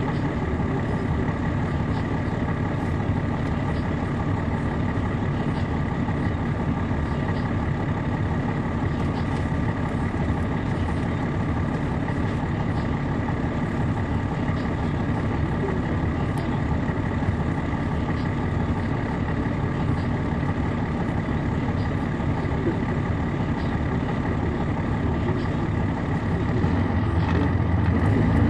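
A Caterpillar C13 diesel engine in an MCI D4500CL coach, heard from inside the bus, running at steady revs with an even drone. About a second before the end it grows louder as the engine begins to take on power.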